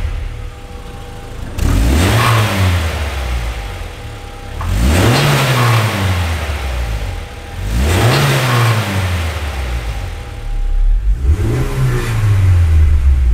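Honda CR-X VTEC's 1.6-litre four-cylinder engine idling and blipped four times while the car stands still, each rev rising quickly and falling back to idle.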